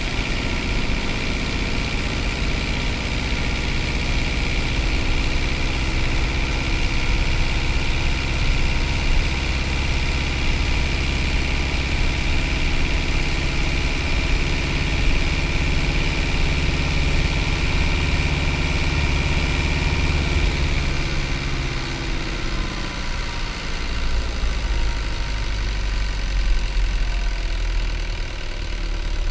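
Hino Liesse bus's J05D 4.7-litre four-cylinder diesel running under way: a steady engine drone with a high whine. About two-thirds of the way through, the whine stops and the engine note drops lower as the bus comes off the throttle.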